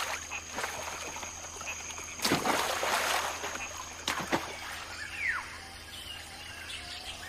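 A macaque splashing into a river: a short burst of splashing water about two seconds in, followed by a couple of lighter splashes. A short falling call sounds about five seconds in, over a steady high insect drone.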